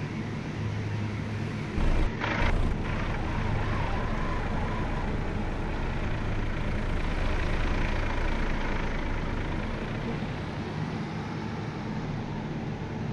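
Truck driving: steady engine drone with road noise, and two short, loud bursts of noise about two seconds in.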